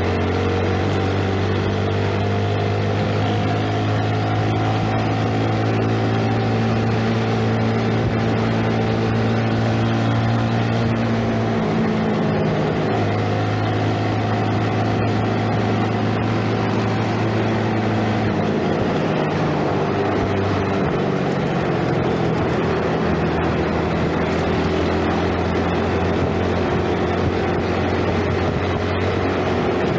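2012 Yamaha Jupiter Z 115cc underbone motorcycle's single-cylinder four-stroke engine running under way at a steady cruise, heard from the rider's seat. Its pitch shifts about twelve seconds in and again around eighteen to twenty seconds.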